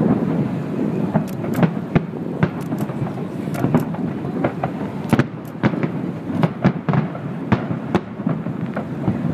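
Distant aerial fireworks display: a continuous thunder-like rumble of shell bursts, with many sharp cracks and bangs at irregular intervals.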